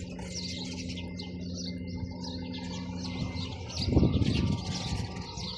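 A flock of sparrows chirping continuously over a steady low hum. About four seconds in, a brief louder rumble rises and fades.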